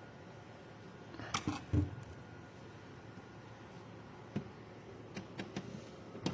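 A few sharp knocks and clicks of handling over a quiet steady background. There is a cluster of taps and a low thump about a second and a half in, then scattered single clicks, and another knock near the end.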